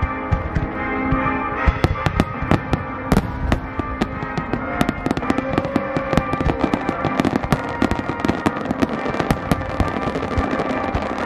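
Starmine fireworks barrage: many shells bursting in rapid succession, several sharp bangs and crackles a second. Music plays steadily underneath.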